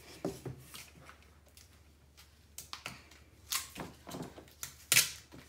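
Plastic baby powder bottles being handled and their caps twisted: scattered clicks and scrapes of plastic, the loudest about five seconds in.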